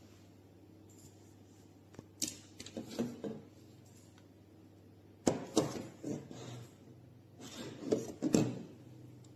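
Handling noises: three bursts of knocks, clicks and rubbing, as a portable neck fan is picked up and turned in the hands.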